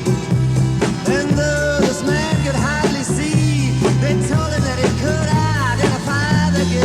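Rock band playing a studio recording: steady bass notes and drums under a melody line that slides and bends in pitch.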